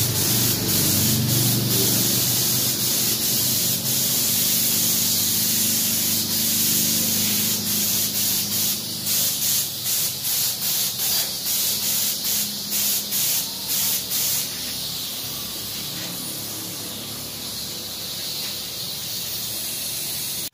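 Gravity-feed paint spray gun hissing as it lays down a silver matte base coat. From about seven to fourteen seconds the trigger is pulled and released in quick short passes, cutting the hiss on and off, and then it sprays steadily.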